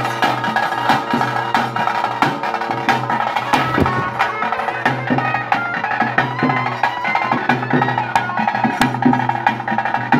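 Traditional ritual music: drums beaten in a fast, dense rhythm over a sustained pitched melody instrument.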